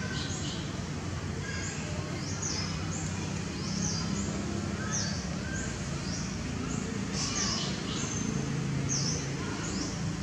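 Birds chirping over and over, short high sweeping chirps every second or so, over a steady low background murmur.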